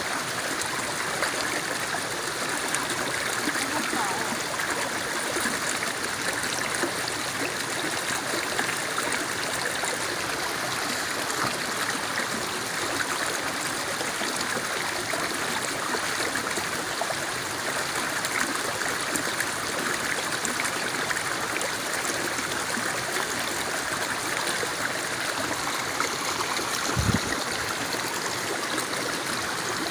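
Shallow rocky forest stream running steadily over stones, an even rushing babble of water. A brief low thump near the end.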